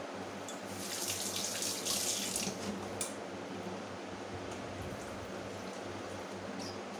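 Water running from a kitchen tap into a stainless steel sink, splashing over a plate being rinsed, loudest from about one to two and a half seconds in. A brief knock comes about three seconds in.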